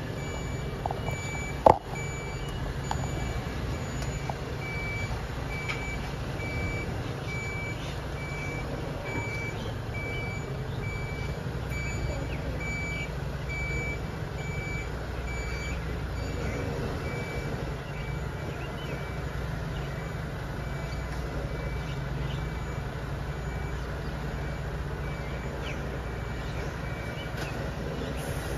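Mercedes-Benz Arocs 2830 6x4 refuse truck running at low speed while reversing, its reversing alarm giving a high beep about one and a half times a second; the beeps fade out a little past halfway while the engine's low hum carries on. A single sharp knock comes about two seconds in.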